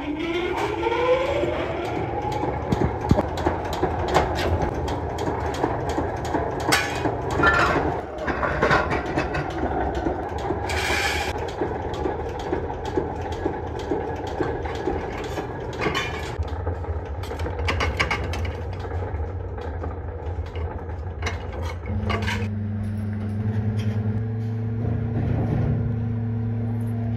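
A workshop power press's electric motor spins up with a rising whine, then runs steadily while sheet-metal stove parts are punched and handled with repeated sharp metal clanks and knocks. From about two-thirds of the way through, a different machine's steady low hum takes over.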